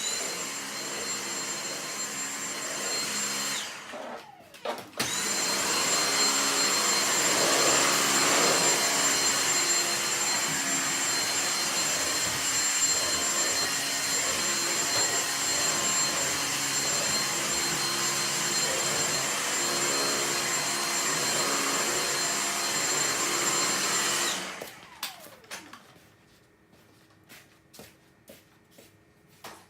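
Vacuum cleaner running with a steady high whine over its motor noise. It is switched off about four seconds in and back on a second later, then switched off again about 25 seconds in and winds down with falling pitch. A few faint clicks follow near the end.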